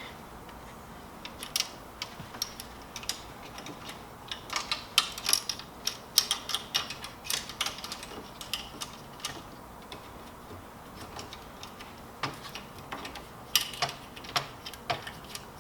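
Irregular light clicks and taps of plastic printer parts being handled, with no steady rhythm, busiest through the middle and again near the end.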